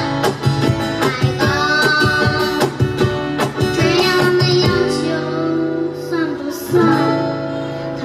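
A child sings a song live, backed by strummed acoustic guitar and cajon hand-drum beats. The drum strokes come through the first half, then the voice holds longer notes over the guitar.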